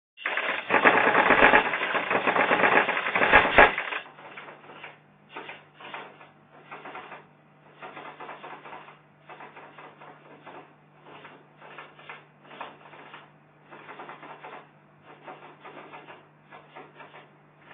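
A loud stretch of dense, crackling clicks lasting about four seconds, then quieter short bursts of rapid clicking, with gaps between them, over a steady low hum.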